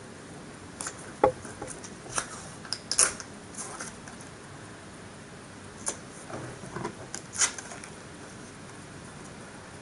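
Scattered light clicks and crinkles of printed card model pieces and adhesive tape being handled, the sharpest a little past a second in and at about three seconds, with a second cluster between about six and seven and a half seconds.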